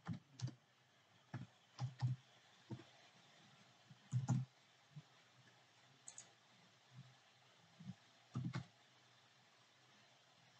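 Faint, irregular keystrokes on a computer keyboard: about a dozen scattered taps, with two heavier ones about four and eight and a half seconds in.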